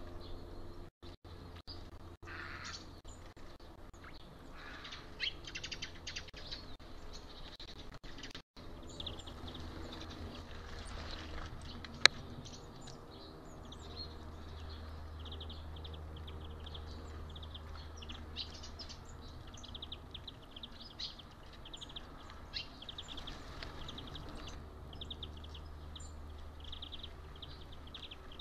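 Small woodland birds chirping and calling, many short high chirps repeated in quick runs, busiest in the second half. A single sharp click about twelve seconds in, over a faint low steady hum.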